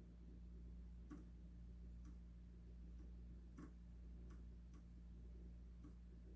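Near silence over a low steady hum, with faint, irregular clicks about once a second from someone working a computer.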